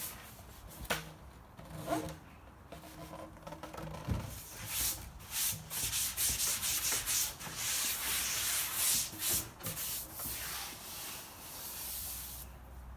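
Packaging being pulled and rubbed off a new wing foilboard: a few sharp knocks, then a quick run of rubbing, scraping strokes of wrap against the board that eases off near the end.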